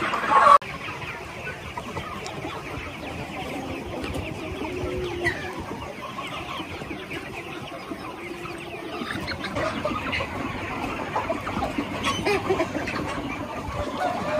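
A flock of young chickens clucking and calling over one another in a steady chatter. It is louder for the first half second, then drops suddenly to a lower level.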